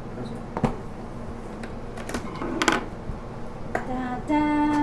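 Scattered light clicks and taps of hands working open a cardboard camera box, pulling at its flaps and tape. Near the end a short burst of voice and a held vocal tone of about half a second.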